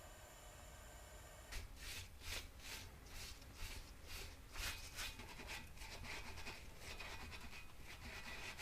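Repeated rubbing strokes, about three a second, starting about a second and a half in and merging into a more continuous scrubbing in the second half.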